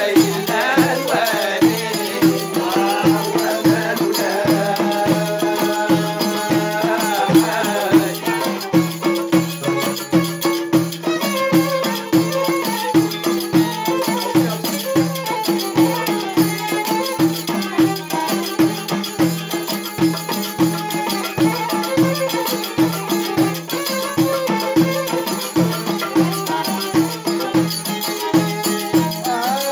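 Moroccan Jbala folk music (aita jabalia) with a steady percussive beat under a held drone and a wavering melody.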